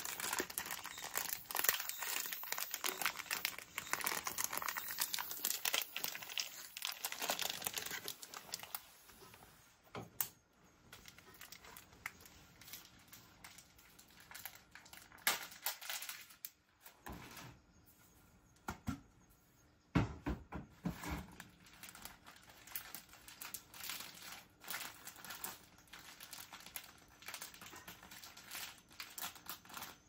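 Plastic pasta packet being handled and opened, crinkling and tearing. The crinkling is dense for the first several seconds, then thins to scattered crackles with a few sharper clicks and knocks.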